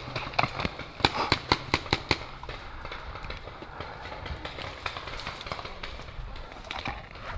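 Paintball markers firing: a quick string of sharp pops about a second in, roughly five a second, then scattered lighter pops.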